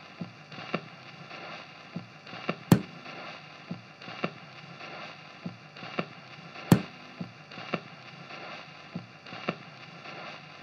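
Old-recording surface noise added as an effect: a faint steady hiss with scattered irregular clicks and pops, two of them much louder, about a third of the way in and again about two thirds in.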